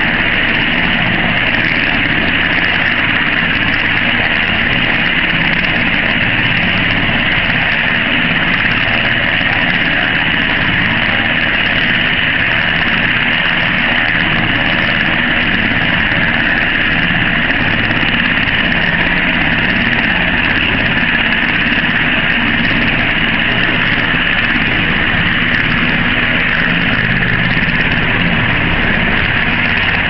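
Loud, steady noise of an MH-60 Jayhawk helicopter in flight, its turbine engines and rotor running without change.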